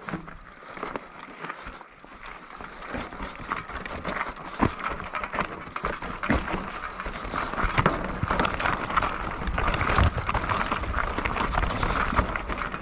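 Mountain bike clattering over rocky, loose ground: irregular knocks and rattles from the tyres and frame, with wind rumbling on the microphone that grows louder in the second half.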